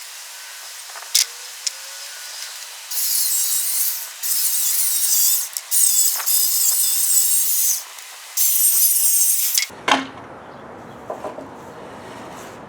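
Circular saw cutting through a wooden deck board in four loud bursts of a second or two each, separated by short pauses, ending about ten seconds in. The sound is thin, with no low end.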